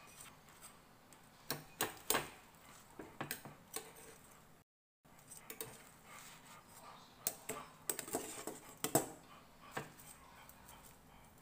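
Metal kitchen tongs clicking and tapping against a plate and the fried fritters as they are arranged: scattered light clicks and knocks at irregular intervals.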